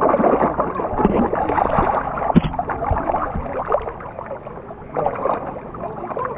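Shallow lake water splashing and slapping continuously as fish churn the surface at the edge, in dense crackling patters that ease slightly after the first few seconds.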